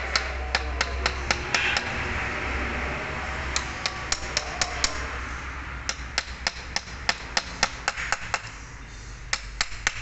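Hammer striking a steel drift to drive the rotor shaft and bearing into a power steering pump housing. Sharp metal-on-metal taps come in runs of several strikes, about four a second, with short pauses between runs.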